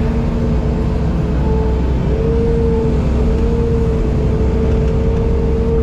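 Diesel engine of a piece of earthmoving equipment running steadily, with a low rumble and a whine that wavers slightly in pitch.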